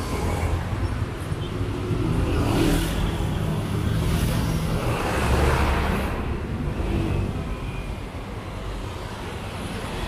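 Road traffic on a city avenue: cars and vans driving past close by, one after another, with a steady low rumble. The passes are loudest in the middle and ease off after about six seconds.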